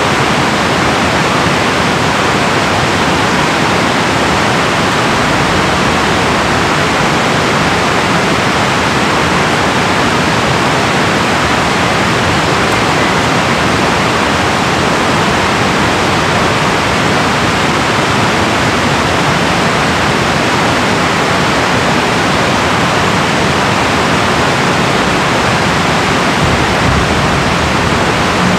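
Water pouring through a river dam, a loud, steady rush that does not change.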